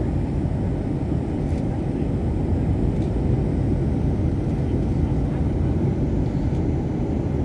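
Steady low rumble of a Boeing 737-800's engines and airflow, heard from inside the passenger cabin.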